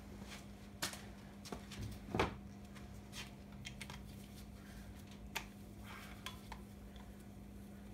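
Scattered light metallic clinks and taps of hand tools and loose engine parts being handled, with one louder knock a little after two seconds in, over a faint steady hum.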